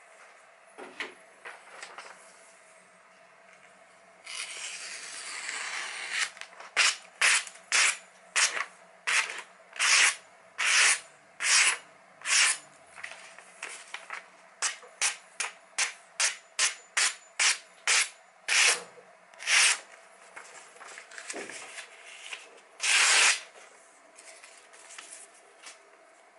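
A sharpened kitchen knife slicing through printed paper: a couple of seconds of rustling, then about two dozen short, crisp cuts in quick succession, and one longer slice near the end. This is a paper-cutting test of the freshly sharpened edge.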